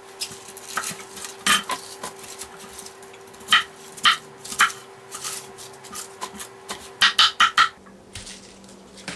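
Kitchen knife chopping bok choy on a wooden cutting board: irregular sharp knocks, with a quick run of four or five chops about seven seconds in, over a faint steady hum.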